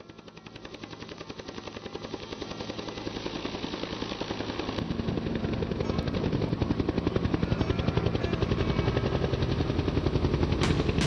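Bell UH-1H Huey helicopter's two-bladed main rotor beating in a fast, even thump, growing steadily louder throughout.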